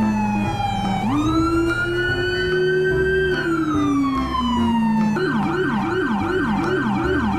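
Police car siren in wail mode, rising and falling slowly in long sweeps. About five seconds in it switches to a fast repeating yelp.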